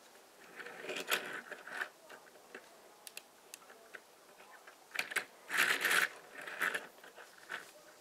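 Plastic building bricks of a Sluban toy truck clicking and rubbing as it is turned over in the hands: scattered light clicks, with a louder brief rustle around five to six seconds in.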